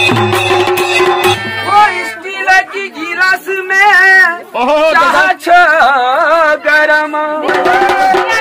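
Kumaoni folk music: a masakbeen bagpipe drone over dhol and damau drum beats, which stops about a second and a half in. A voice then sings a folk melody with strong wavering vibrato, with short pauses between phrases.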